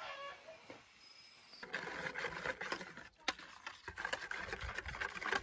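Whisk beating a frothy liquid in a plastic bowl, mixing the yeast starter for a dough: a fast, scratchy rattle of wires against the bowl that starts about two seconds in and keeps on.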